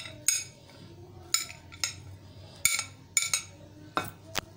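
Glass bowls clinking as chopped vegetables are tipped from one into the other: a string of about eight sharp, irregular clinks, some ringing briefly.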